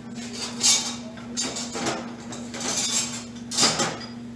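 Metal clinks and clatter of a steel milling-machine knee crank handle being picked up and handled, four short clanks with the sharpest near the start and near the end.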